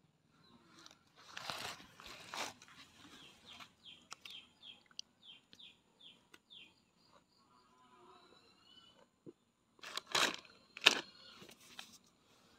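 Crinkling and crunching of a plastic snack packet of cheese puffed-corn snacks as a toddler eats, in two loud bursts, about a second and a half in and again near ten seconds. Between them a small bird chirps a quick run of short falling notes.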